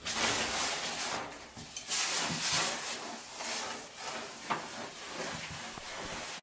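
A hot domestic iron sliding in repeated strokes over wet ripstop nylon, a hissing rub as the water steams off the fabric.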